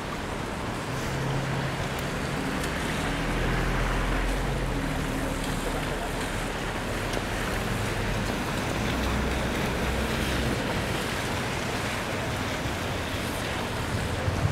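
Street traffic: a steady hiss of tyres on wet pavement with the low hum of passing engines swelling and fading.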